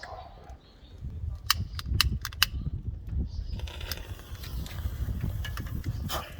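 A series of sharp clicks and taps: five in quick succession about a second and a half in, and a few more near the end, from hands working on the Zetor 15's engine while it is readied for a start, with a low rumble underneath. The engine is not running yet.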